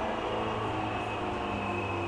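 JR 205-series electric commuter train running between stations, heard from inside the passenger car: a steady low rumble with several steady motor and gear whine tones that drift slightly lower.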